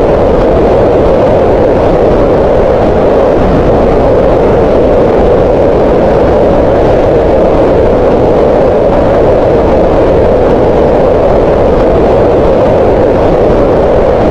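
Green noise: a steady, loud hiss-like noise with its energy centred on a band around 500 Hz, even and unchanging throughout.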